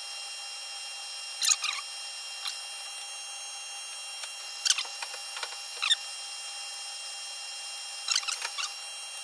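A lathe running steadily with a whine of several fixed tones, while a felt-tip marker is pressed against the spinning sine plate roll, giving short scratchy squeaks about every second or two. The roll is being marked up to show where a stone or lap touches it.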